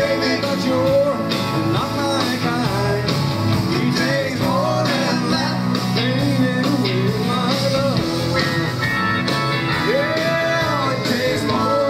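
A live rock band playing a song: electric guitars, bass and drum kit, with a sung lead vocal over them, heard from among the audience.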